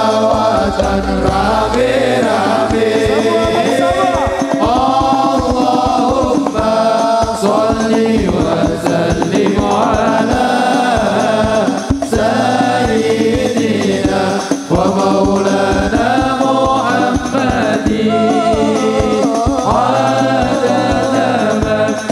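A man singing an Arabic sholawat (devotional song in praise of the Prophet) into a microphone, melodic and drawn out, over a steady percussion beat.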